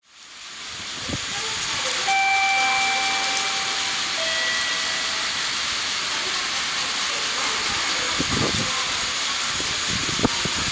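Shinkansen bullet train rushing past at speed: a loud, steady hissing rush. About two seconds in its horn sounds, then drops to a lower note about two seconds later.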